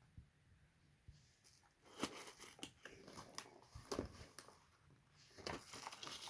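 Keyboard packaging being handled and opened: scattered crinkles, rustles and clicks, beginning about two seconds in.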